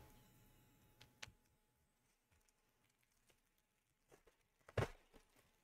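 Near silence with a few faint clicks of trading cards being slid through a stack by hand, the clearest a double click almost five seconds in.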